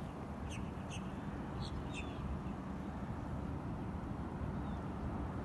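Wind rumbling on a phone microphone outdoors, with a few short bird chirps in the first two seconds and one faint chirp near the end.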